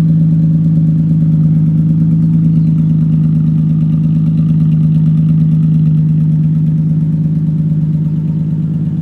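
Nissan 350Z's 3.5-litre V6 idling steadily, the car just pulled out of the garage.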